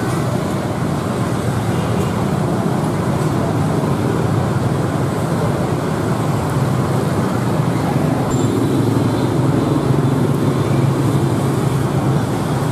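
Steady road traffic on a busy street: motorbikes, scooters and cars running past in a continuous rumble.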